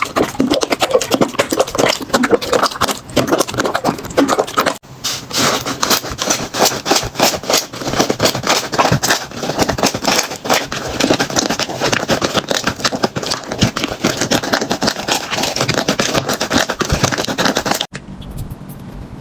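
Slime being squeezed and pressed by hand, giving a dense run of crackling and popping clicks. The sound breaks off for a moment about five seconds in and turns much quieter near the end.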